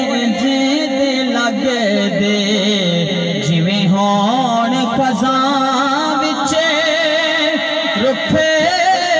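A man singing a Punjabi devotional kalam through a microphone and PA loudspeaker, drawing out long wavering notes.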